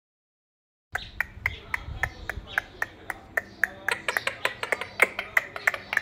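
Indian ringneck parakeet making a rapid run of short, sharp clicks and chirps, about three to four a second, starting about a second in.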